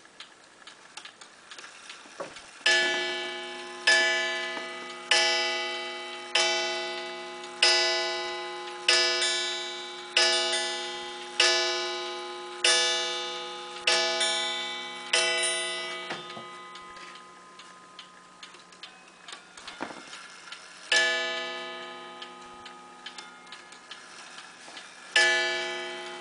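Pendulum clock ticking while its hammer strikes a coiled wire gong eleven times, about once every 1.25 seconds, each stroke ringing out and fading. After a pause of about six seconds it strikes once more, and again about four seconds later.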